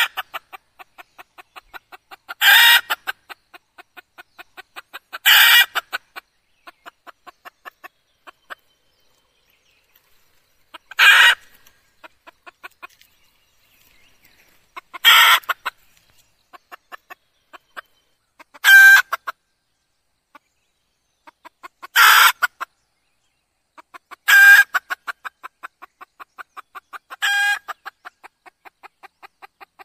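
Red junglefowl hen calling: eight loud cackling calls a few seconds apart, with soft rapid clucking between them. A recording of the kind played as a decoy call to lure wild junglefowl.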